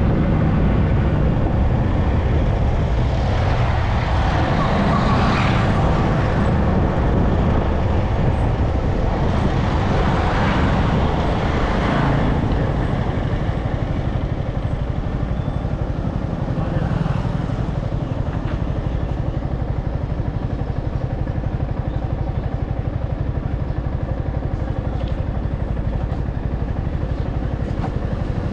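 Motorcycle riding along a road: the engine runs steadily under a dense rush of road noise, with other traffic around.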